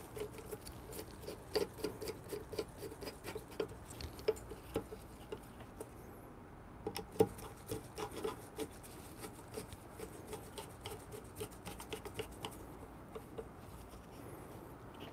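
A screwdriver turning the small screws that hold a steel flat burr to a DF64P coffee grinder's burr carrier: a run of light, irregular clicks and scraping, several a second, with one sharper click about seven seconds in. This is the initial screw-down of the new burr.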